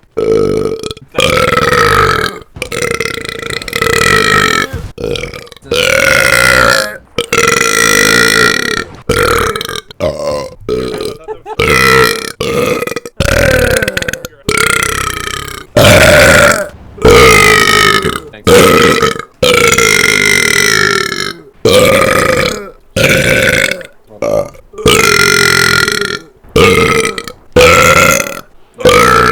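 A rapid series of about two dozen loud burps, each lasting half a second to a second, cut back to back with abrupt gaps between them; some are wet.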